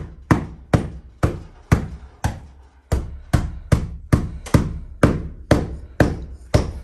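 Carpet beater whacking an old mattress in a steady run of hard blows, about two or three a second, beating the dust out of it.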